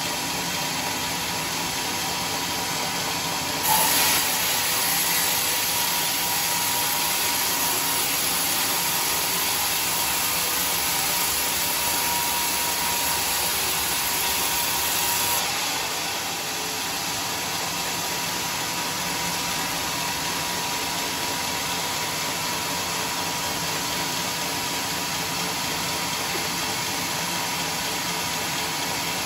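Homemade band sawmill running, its blade cutting through a teak log: the cut comes in sharply about four seconds in as a louder, hissing saw noise, lasts about twelve seconds, then drops back to the machine running steadily without load.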